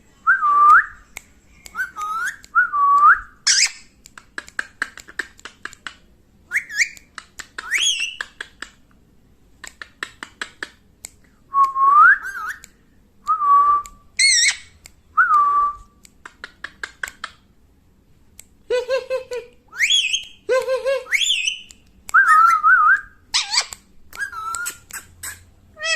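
Pet parrot whistling: many short whistles that rise and bend, some swooping up high, broken up by quick runs of clicks.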